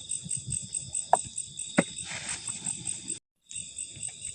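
Insects chirping in a steady high pulsing rhythm, about five pulses a second over a continuous buzz, with two sharp clicks in the first two seconds; the sound cuts out to silence for a moment about three seconds in.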